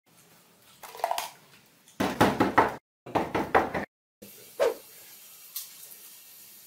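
Thin plastic drinking cups knocked over and clattering on a tiled floor: two quick bursts of rapid knocks about a second apart, then a single thump.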